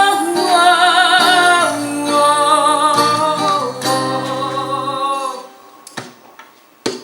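A woman sings, holding a long note with vibrato to acoustic guitar accompaniment. At about five seconds the note ends and the music thins out to a few separate guitar strums.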